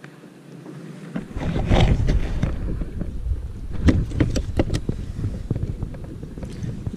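Wind buffeting the microphone on a kayak as a low rumble that comes in about a second in. A few sharp knocks and clicks follow, a quick cluster of them around the middle.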